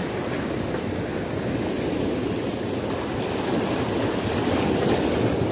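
Choppy sea waves washing and breaking against rocks: a steady rushing noise that grows slightly louder toward the end.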